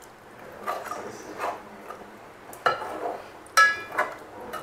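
Steel ladle stirring chicken curry gravy in a pot, knocking and scraping against the pot's side in irregular clinks. The loudest is a ringing metallic clink about three and a half seconds in.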